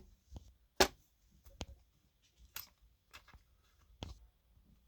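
A handful of sharp, separate clicks and light knocks, the loudest about a second in, with quiet between them: small handling noises.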